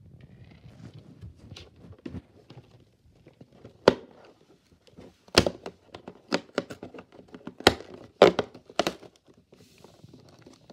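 Perforated cardboard door of an advent calendar being pressed and torn open by hand: a series of sharp taps and cardboard pops, with light rustling of the card.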